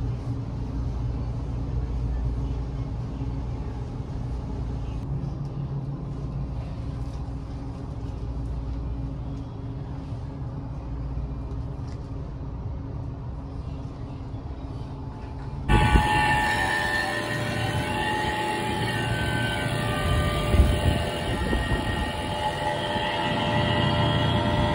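A steady low hum, then after an abrupt cut about two-thirds of the way in, a Fieldpiece refrigeration vacuum pump running steadily with a louder drone and several held tones as it pulls a vacuum on the repaired refrigerant line.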